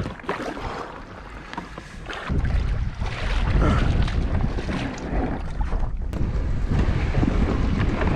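Wind buffeting the microphone, a loud low rumble that gets much stronger about two seconds in.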